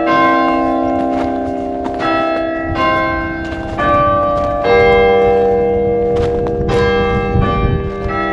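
Church bells being rung in sequence, a new bell struck roughly every second, each one ringing on over the next, in the manner of English change ringing.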